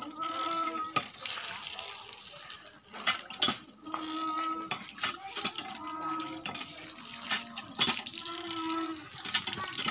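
A cast-iron hand pump is being worked, and water gushes from its spout onto a basket of spinach leaves being washed. The pump squeaks with a held tone on several strokes, a couple of seconds apart, and sharp metallic knocks fall between the squeaks.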